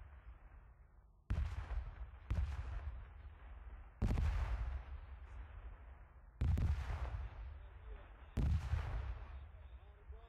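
Artillery shells exploding during a live-fire drill: five heavy booms, one to two seconds apart, each trailing off in a low rumble.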